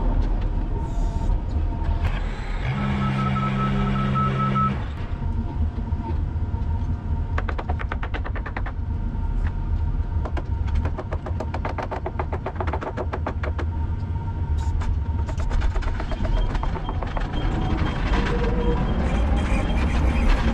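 Construction machine engine running with a steady low rumble under background music. A steady beeping tone sounds for about two seconds near the start, and fast, even clicks run through the middle.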